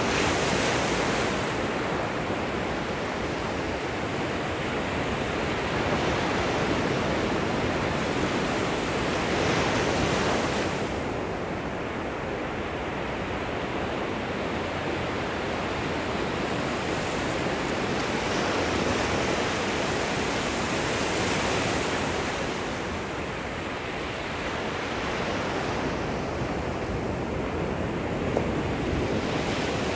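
Gentle ocean surf at the shoreline: small waves breaking and washing up the beach in slow, overlapping swells every few seconds.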